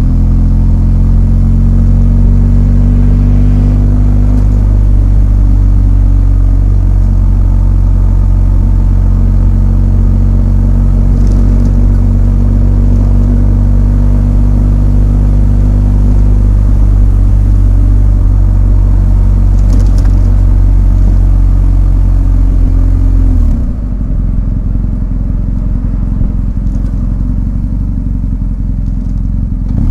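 BMW R1250 GS 1254 cc boxer-twin engine running under steady throttle. About three-quarters of the way in, its note drops to a quieter, rougher sound.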